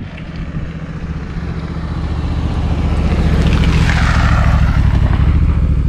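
Honda Africa Twin adventure motorcycle approaching along the road, its engine growing louder over the first few seconds, then passing close by about four seconds in with a slight drop in pitch.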